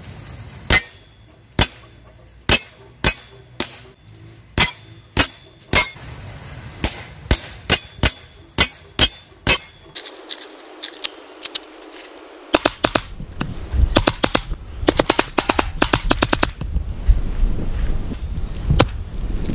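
Gas blowback airsoft pistol firing shot after shot at hanging steel plates. Hits make the plates ring with a high metallic ping. Slower single shots come first, then a short pause of gun handling, then quick strings of shots.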